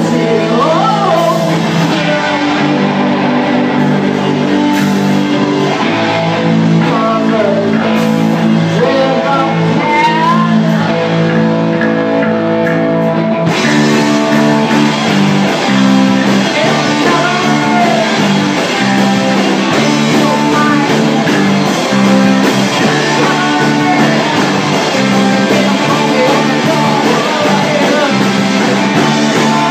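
Live rock band playing a song with a sung vocal over guitar. The sound turns brighter and fuller about halfway through.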